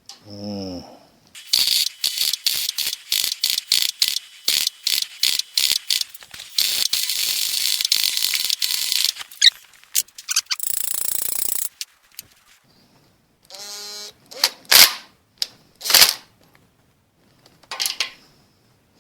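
Rapid, ratchet-like metallic clicking from hand tools for several seconds, with a hiss joining it halfway through. It is followed by a few separate knocks.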